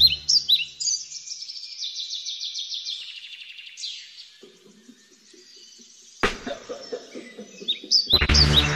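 Birds chirping and trilling in quick, high runs while the backing music drops out, with a sharp sound about six seconds in. Near the end the full music comes back in.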